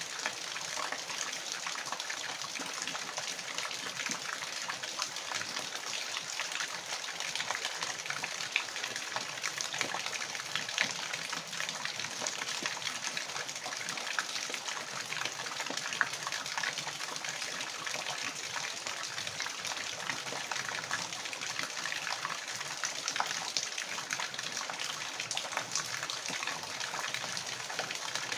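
Water flowing and splashing in a steady rush, with many small splashes and droplets through it.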